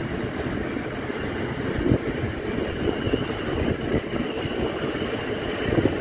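South Western Railway Desiro electric multiple-unit train running past over pointwork: a steady rumble of wheels on rail, with brief faint high squeaks from the wheels about four and five seconds in.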